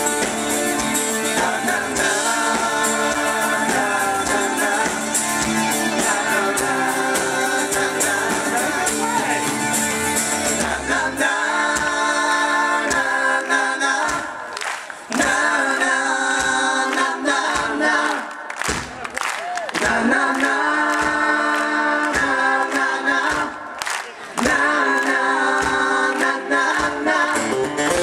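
Live band performing: male lead vocals over acoustic guitar, electric bass, keyboards and drums. About halfway through the instruments fall away and voices sing on almost unaccompanied, with hand-clapping.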